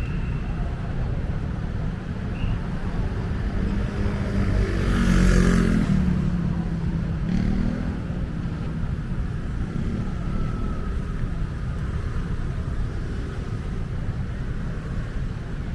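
A motor vehicle passes close by, its engine swelling to the loudest point about five seconds in and then fading, over a steady rumble of street traffic.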